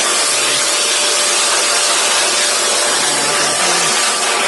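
Handheld electric blower running steadily, a loud even rush of air with a faint motor whine, blowing dust out of the inside of an inkjet printer.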